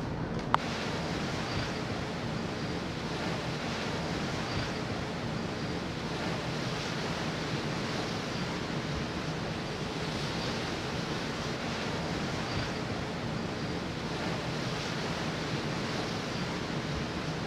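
Steady rush of water along the hull of a ferry under way, mixed with wind across the open deck, with a single sharp click about half a second in.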